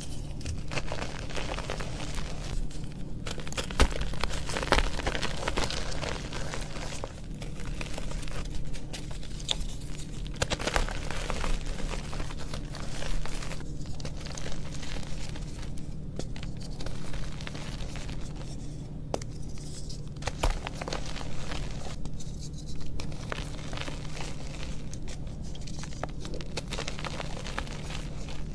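Blocks of reformed gym chalk crushed and crumbled by hand into loose chalk powder: dense, dry crunching and crackling, with a sharper snap now and then as a block or chunk breaks.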